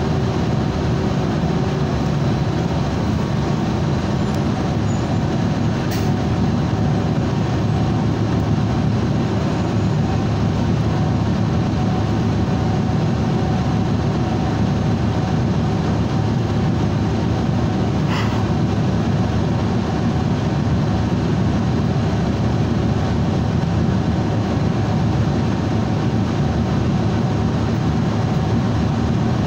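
City transit bus engine running steadily, heard from inside the passenger cabin as a constant low rumble while the bus sits idling at a light. A brief click about six seconds in and another around eighteen seconds.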